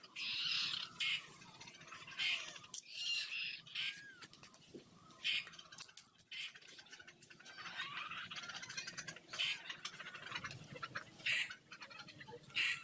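Birds calling outdoors: short, high-pitched, scratchy calls repeating throughout, with a few clearer chirps.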